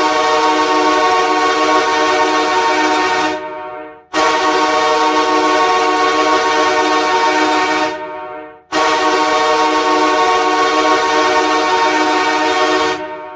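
The Allentown Volcanoes' goal horn sounding three long blasts of about four seconds each, with a short gap between them. Each blast is a chord of several steady tones, and each tails off at the end.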